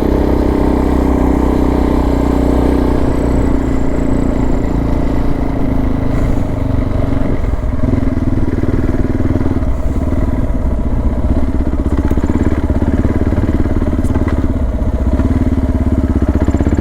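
Suzuki DR650 motorcycle's single-cylinder four-stroke engine running steadily.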